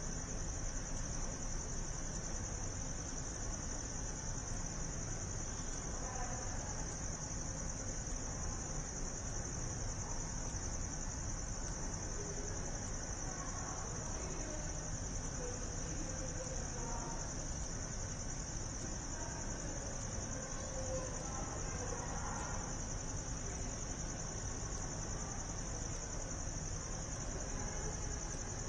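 A steady high-pitched whine under a low background rumble, with faint, indistinct voices now and then.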